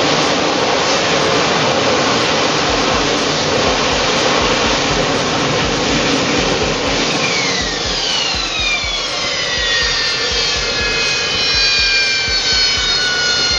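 AV-8B Harrier jump jet's engine running loud with a steady rush as the jet hovers and sets down vertically on a ship's deck. About halfway through, a cluster of high whines starts to fall slowly in pitch as the engine throttles back after touchdown.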